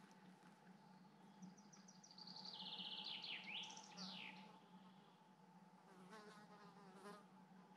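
Faint woodland quiet: a songbird sings one short phrase, a trill that falls in pitch and ends in a few quick downward sweeps, over a steady low hum.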